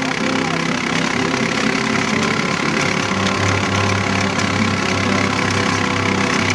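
Engine of the car towing a tricycle rider on a rope, running steadily along a dirt road.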